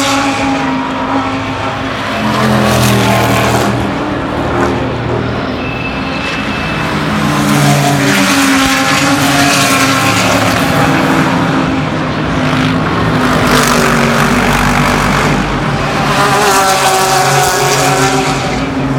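Race car engines running hard at speed as cars pass one after another. The engine note rises and falls with throttle and gear changes, swelling louder several times.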